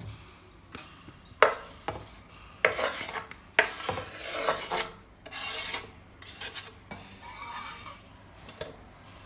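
Chef's knife blade scraping finely chopped onion across a wooden cutting board, pushing it into a bowl of minced meat: a series of short scrapes and light knocks of the blade on the wood, a few of them drawn out to about half a second.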